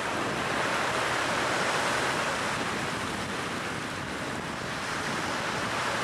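Surf: small waves breaking and washing up over wet sand, a steady rushing that swells gently and eases.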